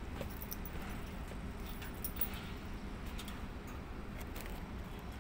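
Steady low rumble of heavy machinery, with scattered light metallic ticks and clinks over it.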